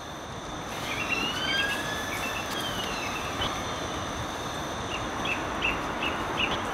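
Outdoor background: a steady rush of distant traffic with birds. A long gliding whistle rises and falls early on, and a quick run of short bird chirps comes near the end.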